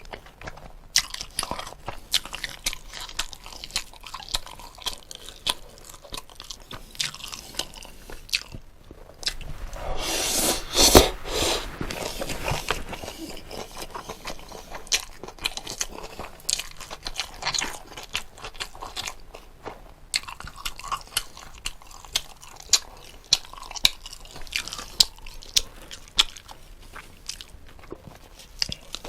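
Close-miked eating of jokbal (braised pig's trotters): steady chewing with many short crunches and clicks, and a louder, noisier crunching stretch about ten seconds in.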